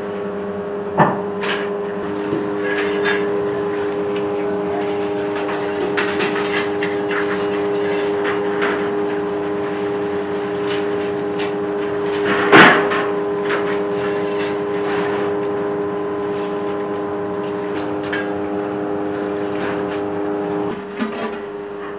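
A steady machine hum with several fixed tones runs throughout. Over it come scattered knocks and clanks of metal and wood as a wood fire under a large cooking pot is stoked with an iron rod. The loudest knock comes about halfway through.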